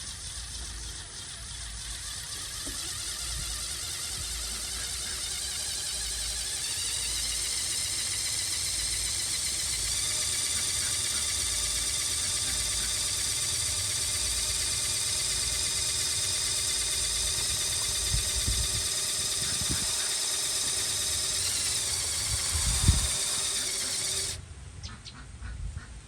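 A small electric motor running with a steady, buzzy whine that builds over the first several seconds and then holds. There is a knock just before the whine cuts off suddenly near the end.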